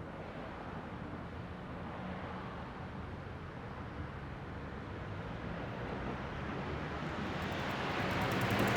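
Steady vehicle noise: a low engine hum under a broad haze of road sound, growing gradually louder toward the end.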